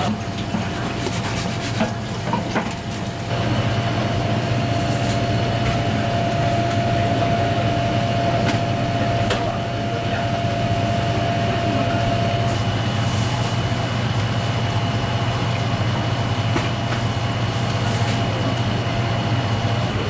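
Steady mechanical hum with a faint steady whistle-like tone that fades out about halfway through, and a few sharp clicks scattered over it.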